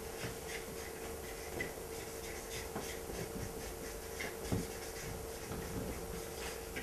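Faint, irregular strokes of a marker writing on flip-chart paper, over a steady electrical hum.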